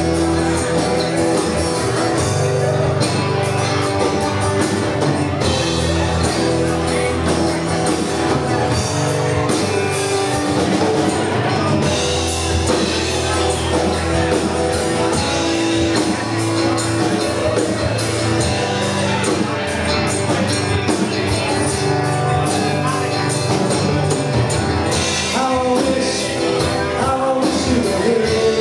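Live rock band playing a song with a lead singer, electric guitars, drums and keyboards, heard from among the audience in a club room.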